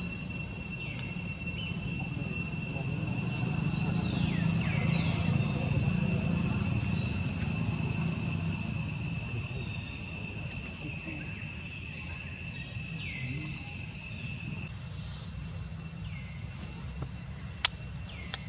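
A steady, high-pitched insect drone holds at two fixed pitches over a low rumble of background noise, with a few short downward-sliding calls now and then. The rumble drops away about three-quarters of the way through, and a few sharp clicks follow near the end.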